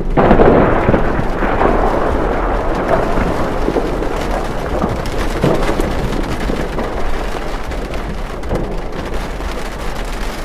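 Heavy rain pouring with a low rumble like thunder. It starts suddenly, is loudest at first and slowly eases off.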